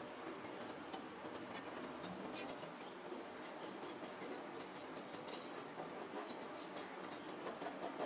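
Faint handling noise: light scratching and scattered small ticks as a thin, heat-warped sheet of welded steel is held and turned in the hand, over a steady low hiss.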